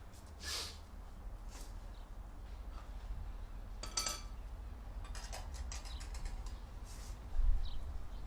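Scattered metallic clinks and taps of tools and exhaust parts being handled, one ringing clink about four seconds in, and a dull low thump near the end.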